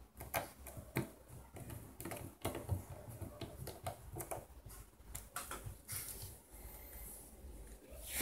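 Small precision screwdriver clicking and tapping against the tiny screws and plastic frame of a mobile phone as it is screwed back together: a run of irregular light clicks.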